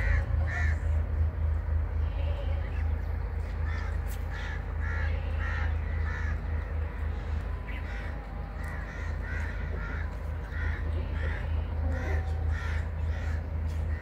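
Helmeted guineafowl giving harsh, repeated calls in bursts of about two a second, over a steady low rumble.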